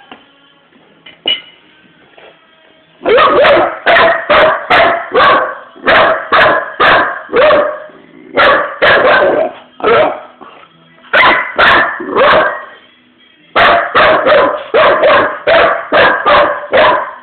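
A young pit bull puppy barking repeatedly in quick runs of short, high barks, about two or three a second, with brief pauses between runs. The barking starts about three seconds in.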